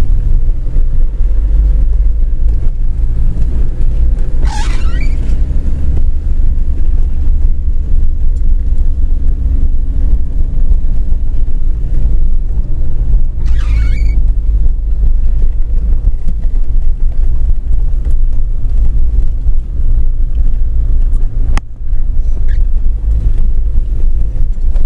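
Four-wheel-drive vehicle's engine pulling steadily in third gear, low range, heard from inside the cab on a rough track: a deep, even rumble. Two brief high squeaks come through, about four and thirteen seconds in.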